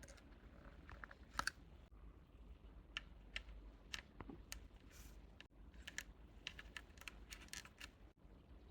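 Light, irregular clicks and taps of small objects being handled during an unboxing, the loudest about a second and a half in and a quicker run of them near the end.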